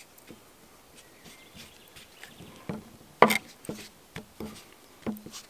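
Hands kneading flatbread dough in a carved wooden bowl: soft rubbing with a few short knocks of wood, the loudest about three seconds in.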